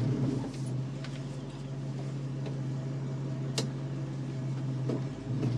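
1967 Ford Mustang's 302 V8 idling steadily, heard from inside the cabin, with one sharp click a little past halfway.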